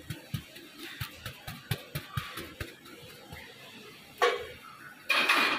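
Pastry brush dabbing oil onto a freshly baked naan: a run of light taps, a few a second, that stop about three seconds in. A short, louder noise near the end.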